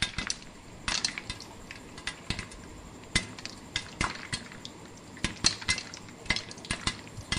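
Irregular clicks and clattering knocks, a few a second, from a street vendor handling corn cobs over a charcoal brazier, over a steady low street background.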